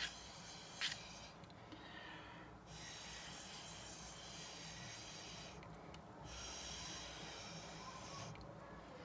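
Breath blown through a cocktail straw in long, faint puffs, pushing wet watercolour blots across paper. There are three blows with short pauses for breath between them, and a brief click about a second in.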